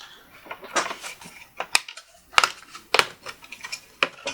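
Plastic clicks and clacks of a laptop LCD panel being unclipped and lifted out of its lid: a handful of sharp, irregular clicks.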